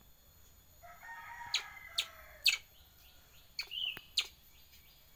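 A rooster crowing once, about a second in, for a second and a half, with a few sharp clicks around it and a short high squeak near the end.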